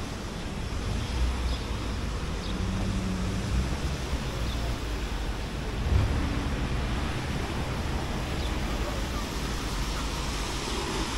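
City street ambience: a steady hiss of traffic with a low rumble underneath, and a few soft low thumps.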